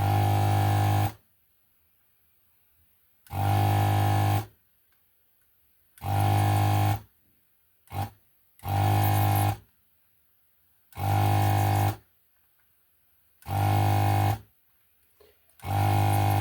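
A low, steady electrical buzz switched on and off seven times, each burst about a second long with a pause of a second or more between.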